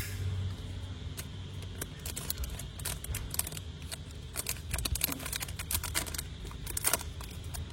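Vintage Zippo lighter being handled: one sharp metallic click at the start, then a run of small irregular metal clicks and taps.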